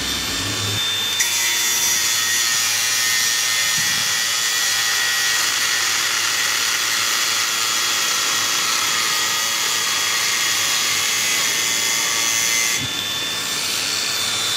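Makita GA404D cordless angle grinder with a cut-off disc cutting through steel threaded rod: a steady high motor whine, with dense grinding noise from about a second in until a couple of seconds before the end, where the disc breaks through and spins free.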